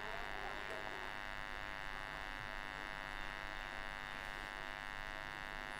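Faint, steady electrical buzz made of many even tones stacked together, holding unchanged throughout.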